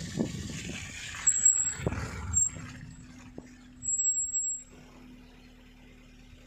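Safari vehicle's engine running with a steady low hum, after a rumbling stretch with a couple of dull bumps in the first two seconds. Short, thin high-pitched tones sound about a second in, again near two and a half seconds, and longest near four seconds.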